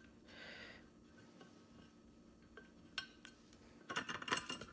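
Small metal screw being worked out of a GPU waterblock's backplate with a small screwdriver: a few sparse light ticks, then a quick run of louder metallic clicks and clinks near the end.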